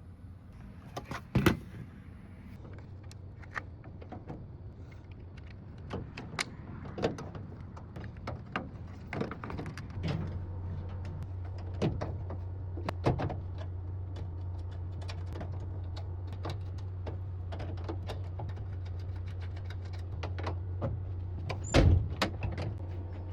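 Scattered clicks, taps and knocks of hand work on a bus side door's handle and lock mechanism as the new handle and its clip are fitted, with a louder knock about one and a half seconds in and another near the end. A steady low hum comes in about ten seconds in.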